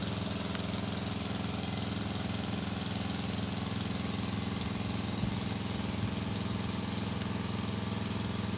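Small engine-driven water pump running steadily at a constant speed, pumping out a drainage ditch.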